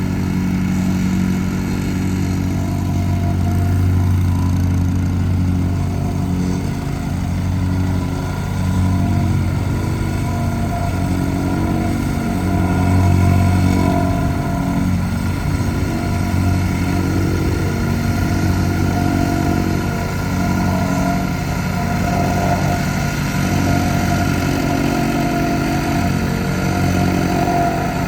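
Central Machinery 6.5 HP 179 cc plate compactor running: its small single-cylinder gasoline engine goes steadily and loudly, with slight rises and falls in pitch.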